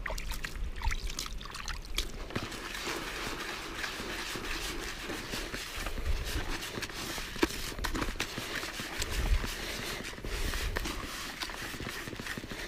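Dry, crumbly fishing groundbait, a breadcrumb-type mix with linseed cake, poured into a plastic bucket and then stirred and rubbed by hand: a steady gritty rustle with many small crackles. The bait is being mixed dry before it is wetted.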